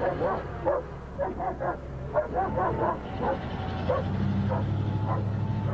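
German Shepherd police dog barking and yelping over and over, several short barks a second. A car engine runs steadily beneath the barking from about four seconds in.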